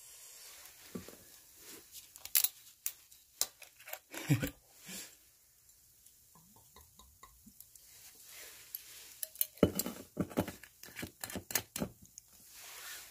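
Utensils and dishes being handled while eating: scattered clicks and light clatter, with a dense run of clicks about ten seconds in.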